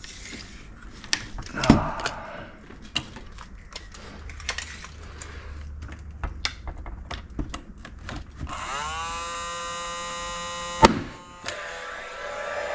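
Paslode cordless nailer firing into a timber window frame. Its fan spins up with a rising whine that levels into a steady whir, then a single sharp crack drives a nail, and the fan whirs on afterwards. Before that come scattered light clicks and a knock.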